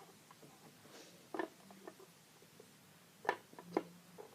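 Light knocks and clicks of small toys being handled. There are a few taps about a second and a half in, then two sharper knocks a little after three seconds.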